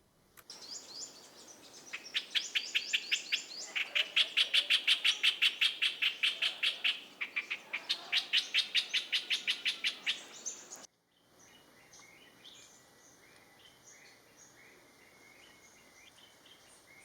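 Streak-eared bulbul calling: a rapid chatter of short, rather aggressive-sounding notes, about six a second, in runs lasting a few seconds. About two-thirds of the way through it cuts off abruptly, leaving fainter scattered chirps over a faint steady high tone.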